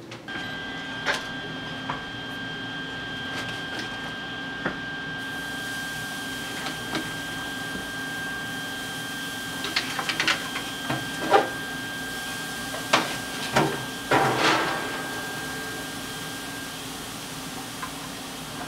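Raw burger patties being set onto the grate of a Big Green Egg lump-charcoal grill: scattered clicks and knocks, busiest about ten to fifteen seconds in, over a steady high whine and a low hum.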